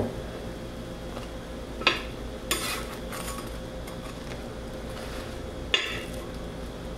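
A knife and bread being handled on a steel flat-top griddle plate: a sharp knock about two seconds in, a brief scrape just after, and another knock near the end, over a faint steady background.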